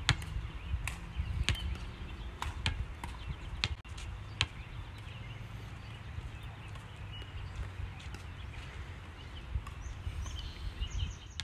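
Open-air ambience: a steady low rumble with scattered sharp clicks, and a few faint short high chirps near the end.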